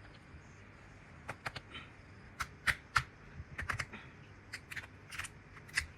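A dozen or so light, irregular clicks and taps, like small objects being handled, starting about a second in.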